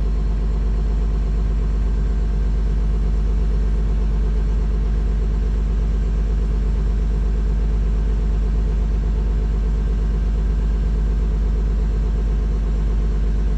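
School bus diesel engine running steadily at fast idle, heard inside the cab, a constant hum of many even engine tones. The air compressor is still charging the brake tanks, the pressure climbing toward governor cut-out.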